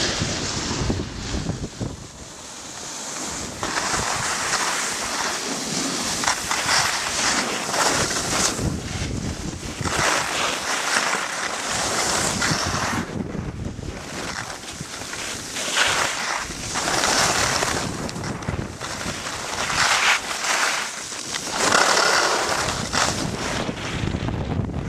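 Skis hissing and scraping over packed snow in a downhill run, with wind buffeting the microphone; the rush swells and fades with each turn.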